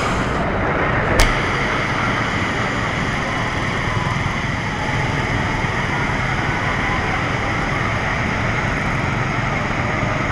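Steady noise of a spinning amusement ride in motion, with one sharp click about a second in.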